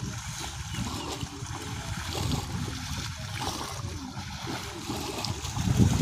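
Shallow water sloshing and splashing over an uneven low rumble, with a louder low surge near the end.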